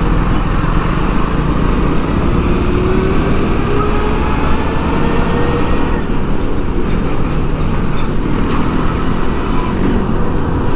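Road traffic noise heard while moving through city streets: a steady heavy rumble of engines and tyres, with a vehicle's engine note rising in pitch a few seconds in.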